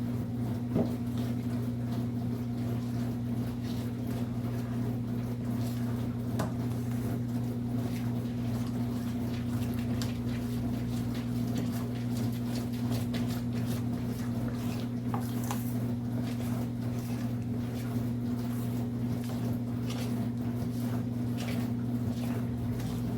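Kitchen work sounds: scattered light knocks and clinks of utensils and dishes over a steady low electrical hum.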